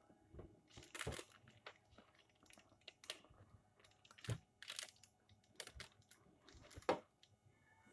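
Faint crinkling of baking paper and scattered short crunchy clicks as a knife works into a slab of peanut brittle that is still not fully set.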